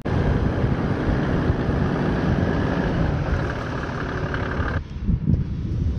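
Toyota LandCruiser 80 series four-wheel drive with its engine running as it drives across sand. The sound cuts off sharply near the end, giving way to wind on the microphone.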